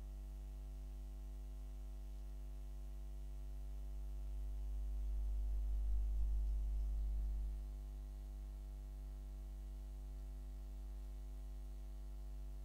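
Steady electrical mains hum with a buzz of evenly spaced overtones, swelling slightly for a few seconds around the middle.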